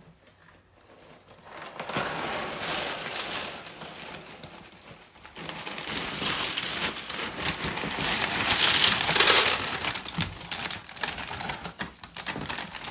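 Dry snack-mix cereal pieces poured into a large basting pan: a dense patter of many small pieces landing. It starts about two seconds in, eases off briefly in the middle, and is heaviest near the end.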